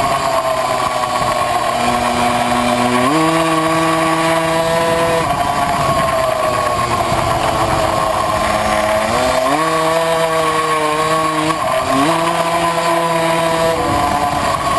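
Tuned 70cc two-stroke engine of a Puch Maxi racing moped running at high revs under load, heard from onboard. Its note sways through the corners, with a sharp step up in pitch a few times that falls back after a second or two.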